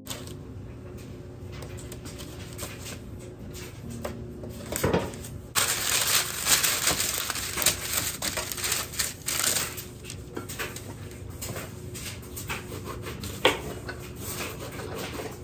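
Parchment paper rustling and crinkling on a metal baking sheet as it is handled and smoothed down, loudest through the middle, with light knocks. Near the end a knife cuts through an orange on a wooden cutting board.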